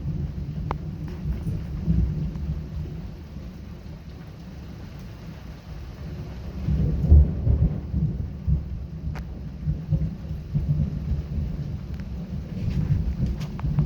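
Thunder rumbling over steady rain during a close thunderstorm. The rumble swells to its loudest about seven seconds in, then keeps rolling.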